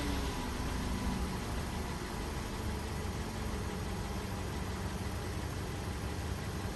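Volkswagen Golf V 1.6 FSI four-cylinder petrol engine on a cold start, its revs falling back from a blip in the first second and then idling steadily. The owner hears a suspect noise from the upper left of the engine only when it is cold, which he thinks may be the hydraulic lifters or the oil pump not yet lubricated.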